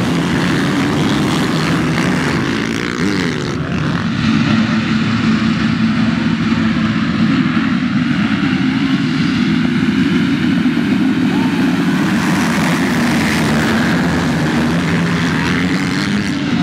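A large pack of motocross bikes with their engines running at once, making a loud continuous drone with no single bike standing out.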